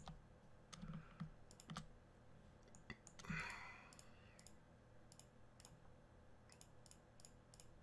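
Near-silent room tone with scattered sharp computer mouse clicks, several in quick succession near the end, and one short soft hiss about three seconds in.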